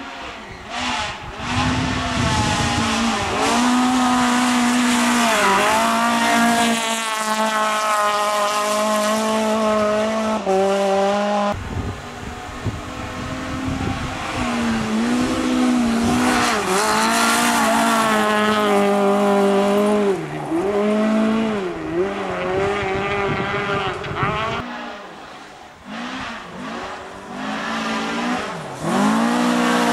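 Rally cars at speed on a gravel stage, one after another, engines revving hard with the pitch climbing and dropping repeatedly through gear changes and lifts. The sound cuts abruptly to a new car twice. The last is a Volvo rally saloon revving up as it approaches.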